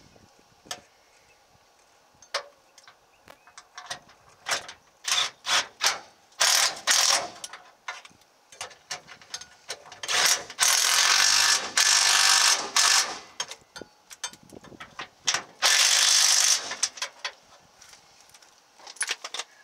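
Cordless impact wrench driving the mounting bolts of a new rear shock absorber. It fires in short bursts at first, then hammers in two longer runs of two to three seconds and about one second, with a few more short bursts near the end.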